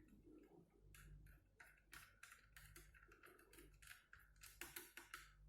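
Faint, irregular small ticks and clicks of a screwdriver driving screws to fasten an Asus X453S laptop's motherboard.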